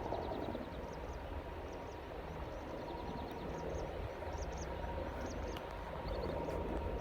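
Distant aircraft noise at an airfield: a steady low rumble with a constant high whine, while small birds chirp repeatedly.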